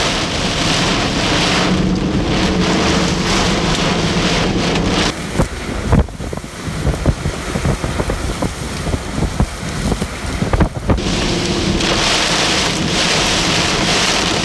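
Torrential rain and strong wind lashing a car driving through a tornadic supercell's rain core, heard from inside the cabin. From about five seconds in, for several seconds, the steady roar thins and gives way to many irregular sharp strikes against the car, before the loud steady rain returns.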